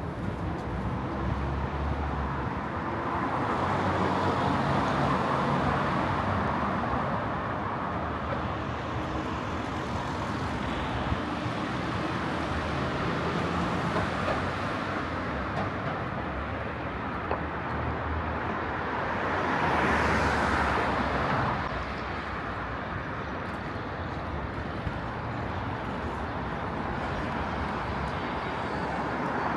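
City street traffic: a steady wash of road noise, with a louder swell as a vehicle passes about two-thirds of the way through.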